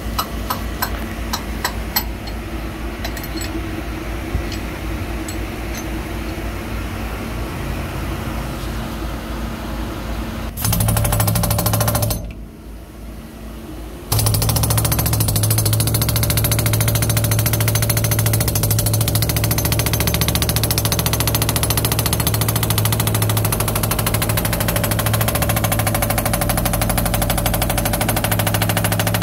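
Jackhammer breaking up hardened concrete inside a cement mixer drum. A steady machine hum with scattered clicks comes first; about ten seconds in, loud rapid hammering starts, stops for about two seconds, then resumes and keeps going.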